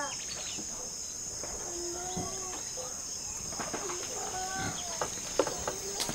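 Steady, high-pitched drone of rainforest insects, with a few faint, short pitched calls over it.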